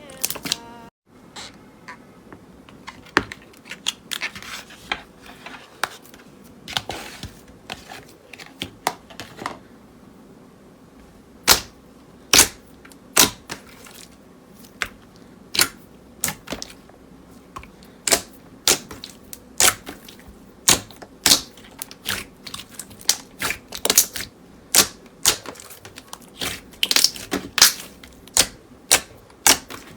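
Slime being played with, making sharp, irregular clicking pops, sparse at first and coming faster from about eighteen seconds in.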